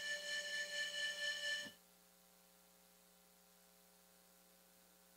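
A held keyboard chord that cuts off suddenly under two seconds in, leaving only a faint steady electrical hum.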